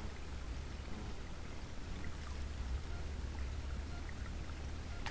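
Faint lapping and trickling of pond water over a steady low rumble, with a few faint ticks.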